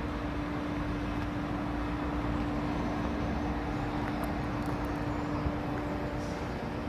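Handheld electric power tool running steadily on car paintwork, its motor giving a constant hum over a rushing noise.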